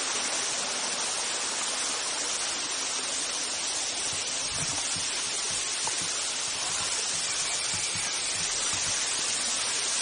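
Water of a small waterfall rushing steadily over rocks, with a few faint low knocks of footsteps on the rocky trail from about four seconds in.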